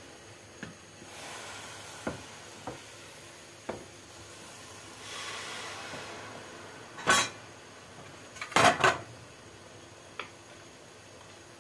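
A spoon knocking against a stainless steel pot of sugar syrup. A few light clicks come first, then a sharp knock about seven seconds in and a louder cluster of knocks near nine seconds.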